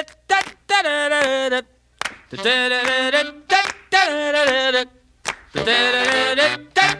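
Music: singing in short, held phrases of about a second each, with sharp clap-like hits in the gaps between phrases.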